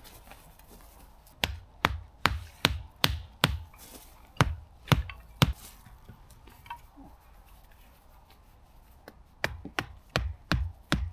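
Tent pegs being hammered into the ground: a run of six sharp blows at about two to three a second, three more a moment later, then after a pause another run of blows near the end.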